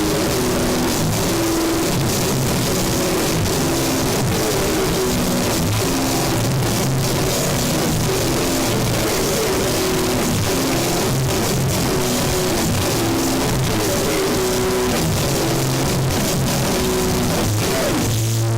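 Grindcore/noisecore band playing: distorted guitar riffing and drum-kit hits under a loud wall of noise. Just before the end the noise drops away to a held low note.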